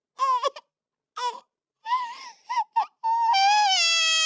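A high-pitched cartoon voice crying: several short sobs broken by dead silences, then, about three seconds in, a long wail that slowly falls in pitch.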